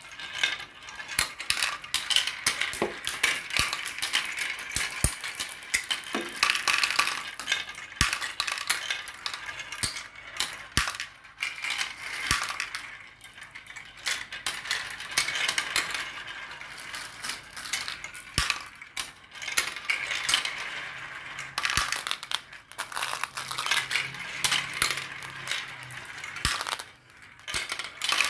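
Marbles rolling and clattering down a marble run, with a dense, continuous rattle of many small clicks and clacks as they knock against the track and each other. There is a brief lull near the end.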